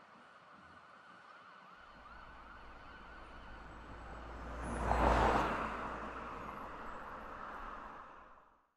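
Emergency vehicle siren wailing over a low vehicle rumble, growing louder to a peak about five seconds in and then easing off before cutting out suddenly near the end.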